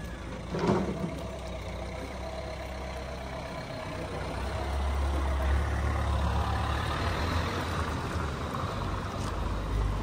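Street traffic: a low engine rumble of a passing vehicle that swells from about halfway through and eases near the end. A short knock sounds just under a second in.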